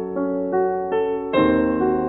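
Background piano music: a slow run of single notes, with a fuller chord struck about one and a half seconds in.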